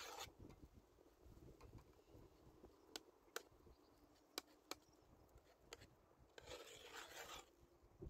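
Near silence: faint outdoor ambience with a few scattered light clicks, and a soft rustle at the start and again for about a second near the end, fitting wind stirring tall grass.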